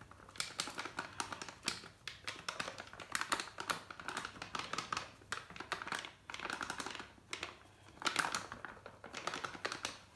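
All-purpose flour being shaken from a scoop over shredded cabbage in a stainless steel bowl: repeated bursts of quick, light ticking, each lasting about a second, with short pauses between.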